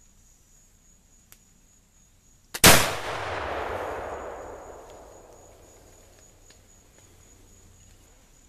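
A Lyman Deerstalker flintlock rifle fires once, about two and a half seconds in. A faint tick comes just ahead of the loud report, which echoes away over the next two to three seconds.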